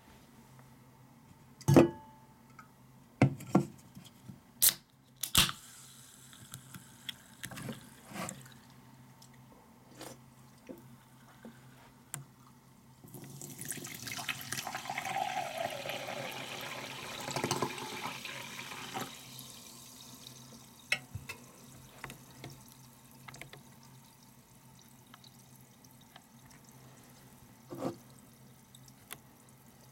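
A can of seltzer is handled and opened with a few sharp clicks and a short hiss. About 13 s in, the carbonated water is poured into a stemmed glass for some six seconds. Then it fizzes faintly with small ticks, and there is a single knock near the end.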